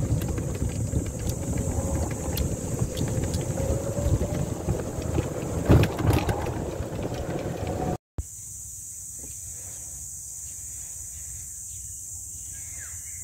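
A golf cart driving along a paved cart path, heard from inside the cart: a steady rumble from the tyres and body with scattered knocks and rattles, and a faint motor whine rising slowly. About eight seconds in, a cut gives way to a quieter steady hiss with a high insect chirring.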